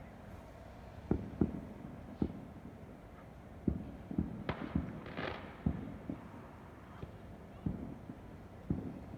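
Fireworks going off: a string of irregular bangs and pops, with a brief crackling burst about five seconds in.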